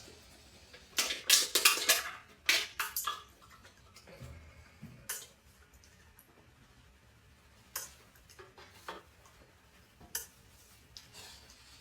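Wet mouth sounds of oral sex: a rapid cluster of sharp smacks and slurps about a second in, then single smacks every second or two.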